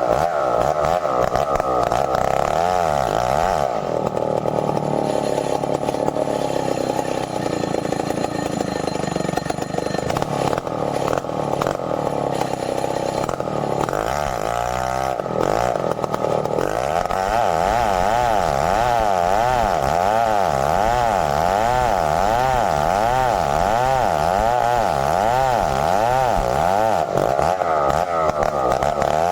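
Stihl 070 two-stroke chainsaw running continuously while cutting merbau timber, its engine note changing about 4 seconds in and again around 15 seconds.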